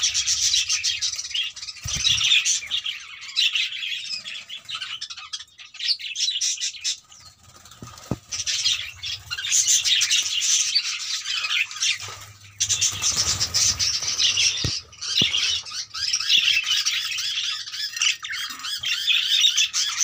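A flock of budgerigars chattering continuously in a breeding aviary, a dense mix of many small calls with a couple of brief lulls.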